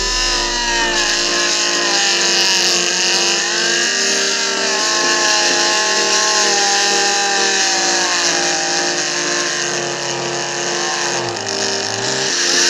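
Small DC motor of a homemade drill whining, its pitch rising and falling as it speeds up and slows, over background music with changing chords.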